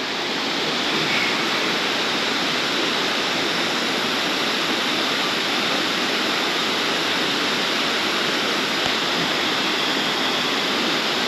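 River water flowing, a steady rush with no breaks.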